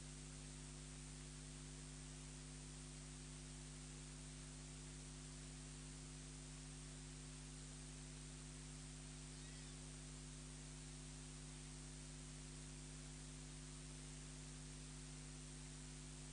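Faint, steady electrical hum under an even hiss, with nothing else happening.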